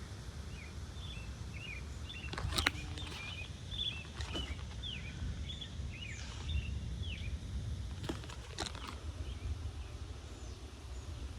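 Wind rumbling on the microphone while birds give many short, falling chirps. A few sharp clicks come about two and a half seconds in and again around eight seconds.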